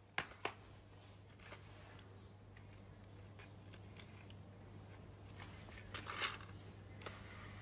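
Faint clicks and crinkles of a clear plastic press-on nail tray being handled, with a louder cluster about six seconds in, over a low steady hum.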